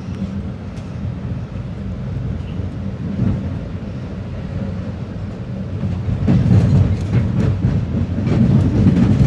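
Commuter train cab car rolling along the rails, heard from inside the cab as a steady low rumble. From about six seconds in it gets louder, with the wheels clacking over rail joints and switches.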